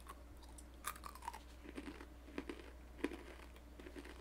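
A person chewing a mouthful of crunchy corn nuts, roasted corn kernels cracking between the teeth in irregular crisp crunches about every half second.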